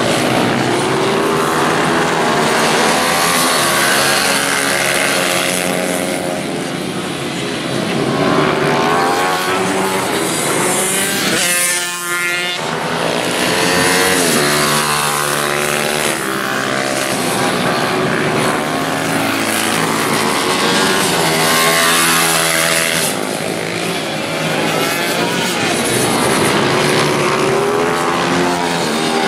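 Small racing motorcycle engines of pitbikes and Ohvale minibikes revving up and down through the gears as they lap the circuit, several at once. About twelve seconds in one bike accelerates hard close by with a clear rising whine.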